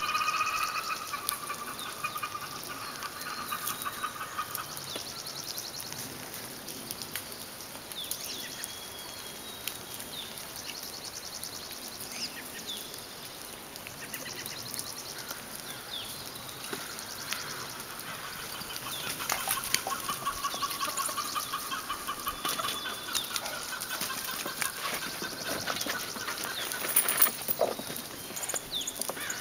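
A small flock of chickens, a rooster and several hens, clucking and calling, with short calls scattered throughout and longer drawn-out calls at the start and again through much of the second half.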